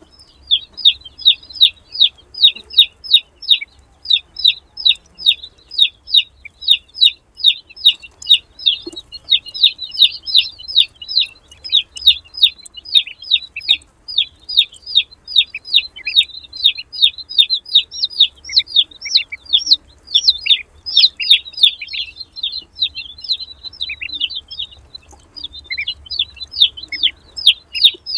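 Newly hatched ducklings peeping nonstop, a rapid run of short high-pitched peeps, several a second, from a group of birds.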